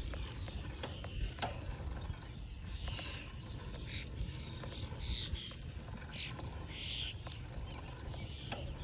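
Wind rumbling on the microphone, with birds chirping several times in the background.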